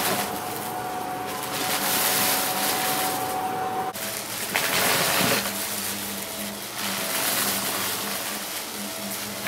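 Upright vacuum cleaner running with a steady motor whine as it is pushed through a pile of crunchy debris. Surges of hissing and crackling come as it sucks up the bits. The whine changes abruptly about four seconds in.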